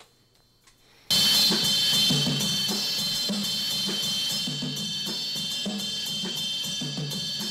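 Break music with a steady drum-kit beat, starting suddenly about a second in after a moment of near silence.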